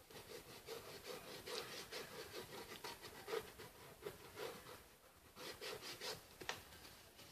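Faint, irregular rubbing strokes, about two a second, of paint being dabbed and worked onto a cardboard box surface, with a short lull about five seconds in.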